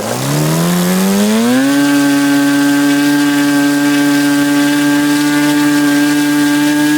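OS 91 FX two-stroke glow engine, freshly rebuilt with a new piston ring and bearings, running with its propeller. It revs up over the first two seconds or so, then holds a steady high speed with its mixture set on the rich side.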